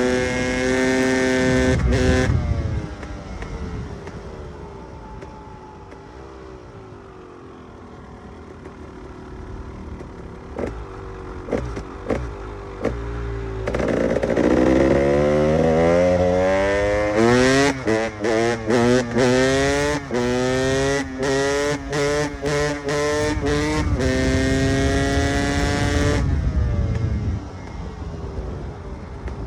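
KTM EXC 300 two-stroke enduro engine under riding load. It holds high revs, then the throttle closes and it falls quiet and low for about ten seconds. Then it accelerates with rising pitch, broken by a rapid string of brief throttle cuts, before backing off near the end.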